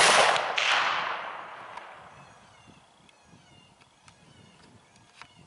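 A single gunshot fired at a coyote: a sharp crack whose echo rolls on and fades away over about two seconds. The coyote drops to the shot.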